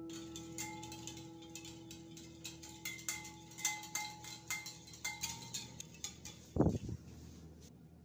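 Metal wire whisk beating eggs, milk and melted butter in a ceramic bowl, its wires clicking and ringing against the bowl in quick, irregular strokes. A dull thud comes near the end.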